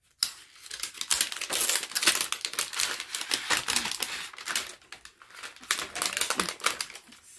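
Crinkly clear plastic packaging film crackling and tearing as it is pulled off a plastic toy egg by hand, in a quick, irregular crackle that eases briefly about five seconds in.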